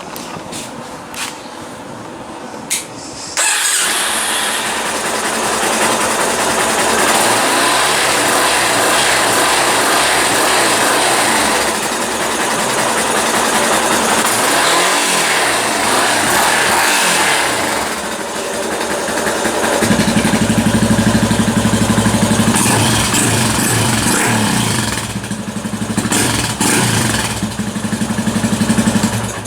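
Yamaha Lander X 250's single-cylinder engine starting up about three seconds in, then running loud with the revs rising and falling as the throttle is blipped; from about twenty seconds in it turns deeper and louder.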